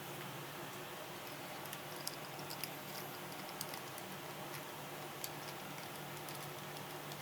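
Scattered faint clicks and taps of small parts being handled while a laptop SSD is fitted into its foil hard-drive caddy, over a steady low hum.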